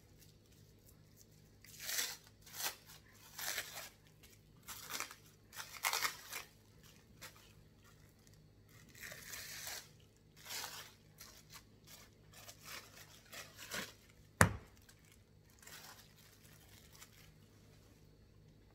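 Plastic wrap crinkling and rustling in irregular bursts as it is peeled off a ball of pie dough, with one sharp knock about two-thirds of the way through.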